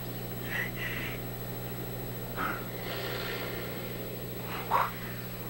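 A quiet stretch of a western film's soundtrack playing through a restored 1948 Crosley TV's speaker: a few faint, scattered sounds over a steady low hum.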